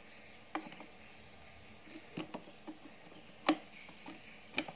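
Scattered sharp plastic clicks and knocks from handling a knapsack sprayer's plastic tank and its yellow wand-holder clip, the loudest about three and a half seconds in, over a faint steady high hiss.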